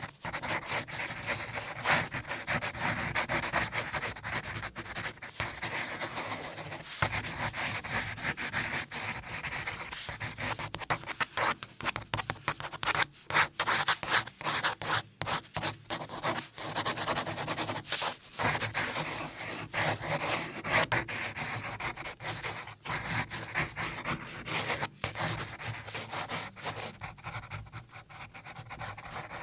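Continuous scratchy rubbing noise with frequent small clicks and crackles.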